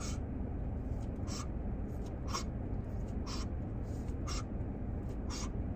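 A person taking quick repeated drags from three blunts smoked at once, each a short hissing puff of air, about one a second. Under it runs a steady low rumble.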